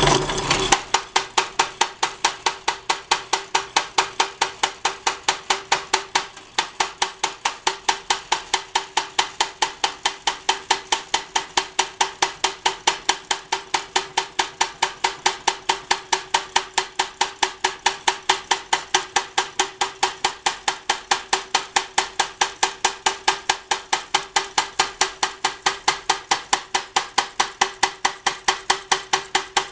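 Foley Belsaw saw retoother punching new teeth into a handsaw blade: a steady run of sharp metallic clacks, about three to four a second, as the ratchet feed indexes the blade along, over the hum of the electric drive motor. The stroking pauses briefly about six seconds in.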